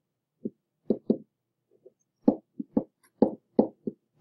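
Stylus or pen knocking on a writing surface while numbers and letters are handwritten: an irregular run of short, soft taps, about a dozen, coming faster in the second half.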